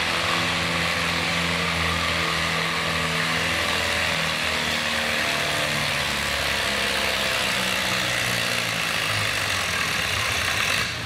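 Farmall tractor's engine running hard under load as it pulls a weight-transfer sled, at a steady pitch.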